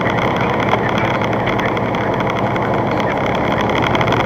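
Steady engine and tyre noise inside a truck's cab, driving at about 57 mph on a wet highway.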